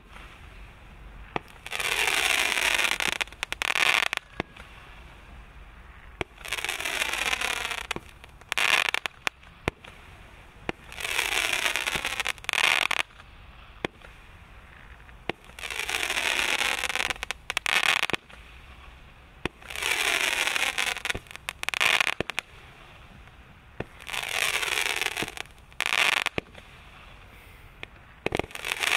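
A repeating firework tube shooting red crackling comets skyward one after another, about every four and a half seconds. Each shot is a rushing hiss of about two seconds that sweeps down in pitch, followed a moment later by a short crackling burst.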